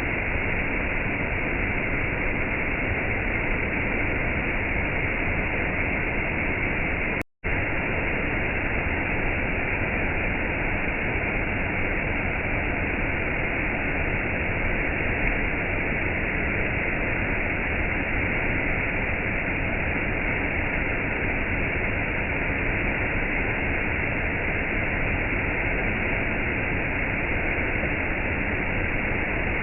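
Rain and a waterfall: a steady, even rush of falling water with no single drops or splashes standing out. The sound cuts out completely for a split second about seven seconds in, then resumes unchanged.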